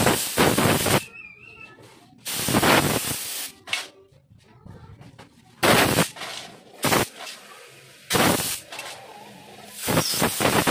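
A compressed-air blow gun firing about six short, loud hissing blasts of uneven length through small carburetor parts to blow dirt out of the passages and fittings.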